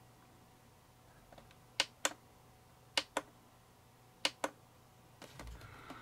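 Three pairs of sharp plastic clicks about a second apart: push buttons on a VTOMAN FlashSpeed 300 portable power station pressed and released to switch its USB and AC outputs. A faint low bump near the end as the unit is handled.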